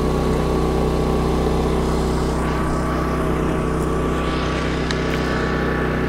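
Champion 3400-watt dual-fuel inverter generator running steadily on propane, with economy mode off so the engine holds its speed.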